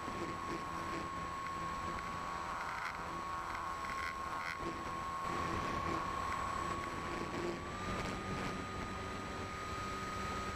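E-flite Apprentice RC plane's electric motor and propeller heard onboard: a steady whine that steps up slightly in pitch about eight seconds in, with wind rushing over the microphone.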